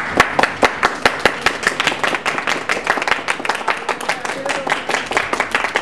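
Small audience applauding: separate, distinct hand claps in quick succession, with a voice or two underneath.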